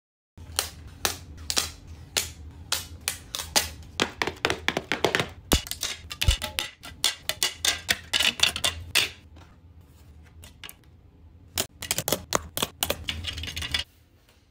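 Rapid clicks and taps of iPod touch packaging being handled: clear plastic box shells, trays and card inserts opened and set down on a wooden surface. The clicking is busiest through the middle, pauses for about two seconds, then comes in another flurry that cuts off abruptly near the end.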